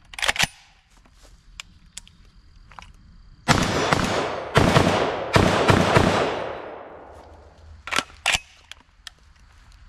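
FN SCAR 16S short-barrelled rifle in 5.56×45 firing several shots in quick succession from about three and a half seconds in, each report trailing off in a long, fading echo. Two shorter, sharper reports follow about a second apart near the end.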